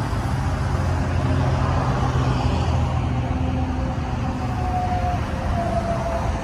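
Steady low rumble of motor-vehicle and road-traffic noise, with a faint higher tone wavering in near the end.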